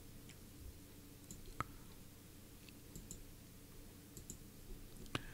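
Faint computer mouse clicks, a sharper one about a second and a half in and another near the end, over a low steady room hum.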